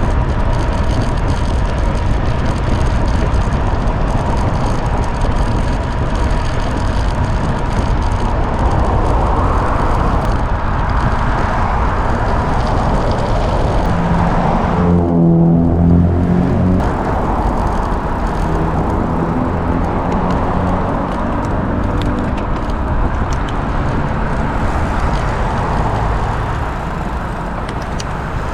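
Steady wind and road rumble from travelling along a road. About halfway through, a passing vehicle's engine is heard for a couple of seconds, its pitch falling as it goes by.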